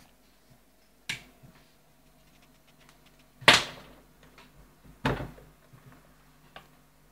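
Knocks and bumps of a portable cassette recorder and a plywood speaker box being handled and shifted on a wooden bench: three sharp thumps, the loudest about three and a half seconds in, then a small click near the end.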